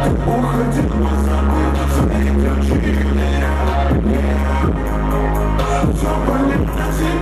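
Loud dance music with a steady drum beat over deep, held bass notes.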